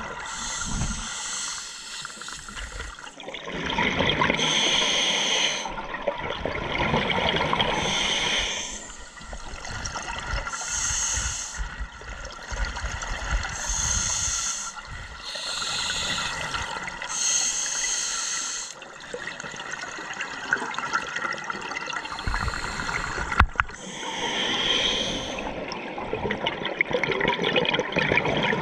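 Scuba diver breathing through a regulator underwater, muffled by the camera's waterproof housing: a hissing inhalation and a rush of bubbling exhaled air, repeating every few seconds. A single sharp click comes late on.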